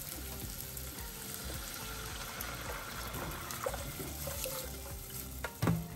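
Thick blended sauce poured in a steady stream from a blender jar into a hot saucepan of sautéed bell peppers, with a light sizzle underneath. A single knock near the end.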